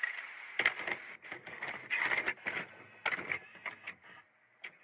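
Videocassette recorder loading and starting to play a VHS tape: a run of mechanical clicks and clunks over a steady hiss, the clicks thinning out and the hiss fading near the end.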